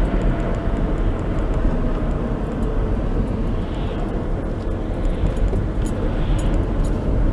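Car being driven: a steady rumble of road and engine noise.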